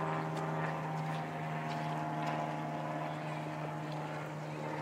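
A steady mechanical hum holding one constant pitch, with a few faint clicks over it.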